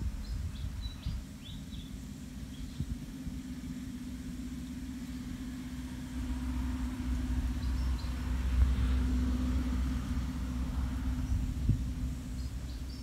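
A motor engine hums steadily, its low rumble growing louder in the middle and then easing off. Small birds chirp briefly at the start and near the end.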